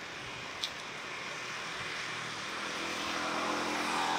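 A distant engine drone, growing louder toward the end, over a steady background hiss, with one short high click a little over half a second in.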